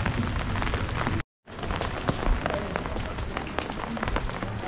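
Rain falling, with many close drops ticking sharply. The sound cuts out completely for a moment a little over a second in.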